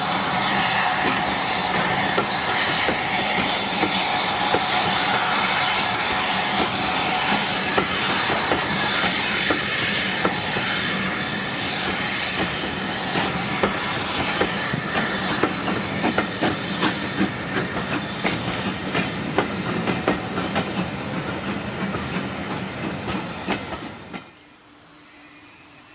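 Steam-hauled passenger train pulling away, its carriage wheels clicking over the rail joints under a steady hiss. The sound cuts off abruptly about 24 seconds in.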